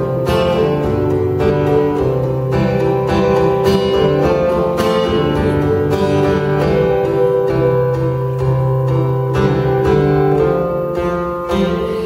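Acoustic guitar played solo, a steady rhythm of picked or strummed chords with no singing.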